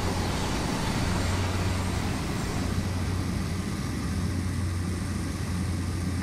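Cabin drone of a CASA twin-turboprop's engines and propellers on landing approach: a steady low hum under even airflow noise.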